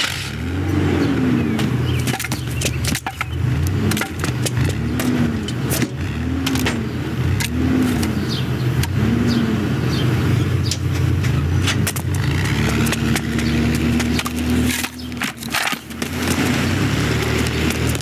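A minivan's engine running as the van drives off: a low, steady hum with several short whines that rise and fall in pitch, and scattered knocks and clatters.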